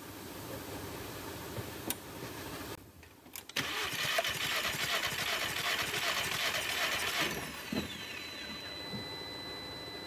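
Starter cranking the Jetta's four-cylinder engine with the spark plugs out for a compression test, for about four seconds from a little over three seconds in, then winding down with a falling whine. The cylinder comes up to even compression, a little over 150 psi. A steady high tone follows the cranking.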